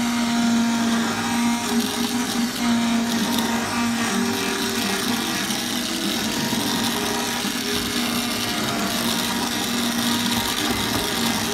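Electric immersion (stick) blender running steadily, its submerged blade puréeing thick chicken and parsnip soup in a stainless steel pot.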